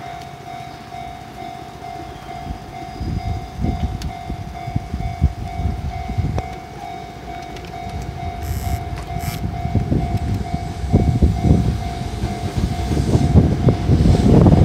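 Level-crossing warning bell ringing in a steady pulsing rhythm while a Keihan Keishin Line electric train approaches, its rumble on the rails growing louder toward the end.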